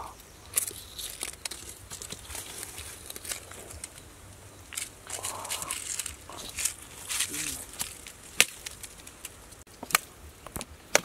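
Hands scraping dry soil and rustling dead leaves while snakes are pulled out of an earth burrow, with scattered sharp clicks and snaps, the loudest about eight and ten seconds in.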